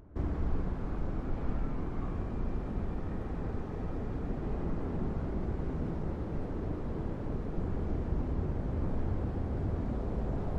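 Steady low rumble of jet airliner engines mixed with strong wind buffeting the microphone, starting abruptly.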